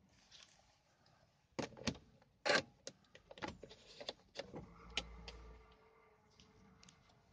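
Key clicking and rattling in the ignition lock of a Mercedes W210 E320, a quick string of clicks, then the ignition switching on about two-thirds of the way in, with a faint steady electrical hum.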